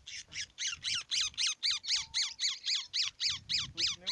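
A trapped cactus parakeet (gri-gri) screeching in alarm as it is handled and worked free of a snare. Rapid, harsh calls come about five a second without a break, each dropping in pitch.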